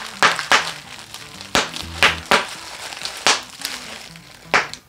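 Bubble wrap being popped by hand: about seven sharp, separate pops at irregular intervals, with the crinkle of the plastic between them.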